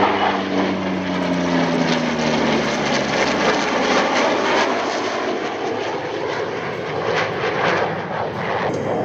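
A CF-18 Hornet jet fighter and a P-40 Kittyhawk fly past in formation, loud and steady. An engine tone falls in pitch over the first few seconds as they go by, then steady jet noise carries on.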